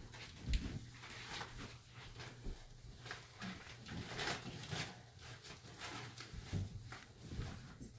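Quiet rustling and scattered soft thumps of children shuffling on a bed and handling balls and a bag, with a louder thump about half a second in.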